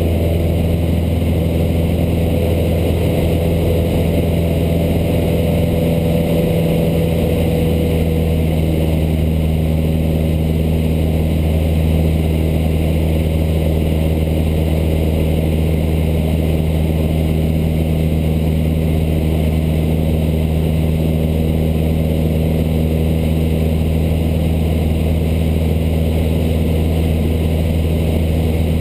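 Cessna 152's four-cylinder Lycoming engine and propeller droning steadily in flight, heard from inside the cockpit.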